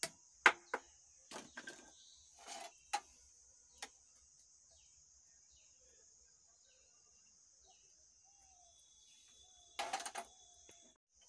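A few sharp snips of side cutters trimming the leads of a freshly soldered MOSFET on an amplifier board, in the first four seconds. Then a steady high insect drone of crickets with faint bird chirps, and a short clatter of hand tools near the end.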